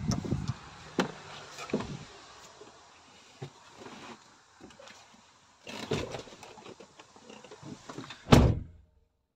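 Scattered knocks, clicks and rustles of someone climbing the steps into an IVECO truck cab. A little over eight seconds in there is one loud thud, the cab door being shut, and then the sound cuts off.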